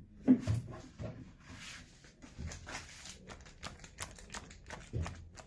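A string of light knocks, taps and rustles from a card and other things being handled close to the microphone, with a louder thump about a third of a second in and a brief soft hiss in the middle.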